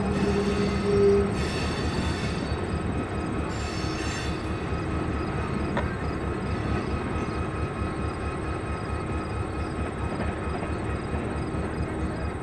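EMD 645 diesel locomotive prime mover running steadily. A short held tone ends about a second in, and two brief hisses come around two and four seconds.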